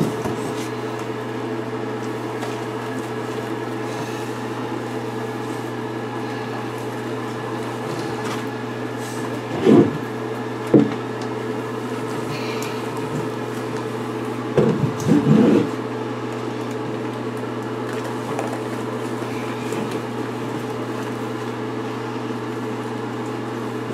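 A steady mechanical hum, with a few short louder sounds about ten seconds in and again around fifteen seconds.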